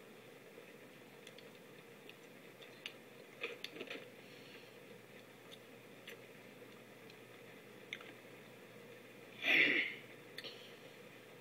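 Quiet room tone with a few faint clicks, then a short, loud burst of breath from a child about nine and a half seconds in, just after a shot of whiskey.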